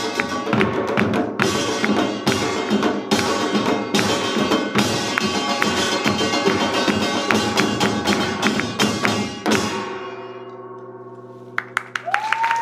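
A Korean samul nori ensemble of janggu, buk, jing and kkwaenggwari plays a fast Yeongnam rhythm, all stopping together on a final stroke about nine and a half seconds in. A gong then rings on and fades away, and clapping begins near the end.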